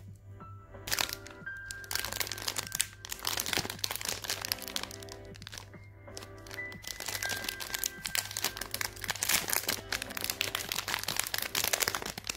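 Snack wrappers crinkling and crackling in two long spells, the second as the foil wrapper of a Halley chocolate sandwich cake is torn open. Background music plays under it.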